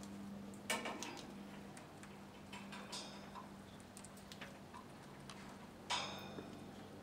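Indian ringneck parakeet foraging at a wooden foraging block: scattered sharp clicks and knocks of its beak on the wood, the loudest about a second in and again near the end.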